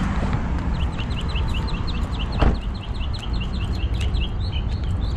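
A small bird singing a rapid series of short chirps, about six a second, with a few higher notes near the end, over a steady low rumble. A single thump about two and a half seconds in.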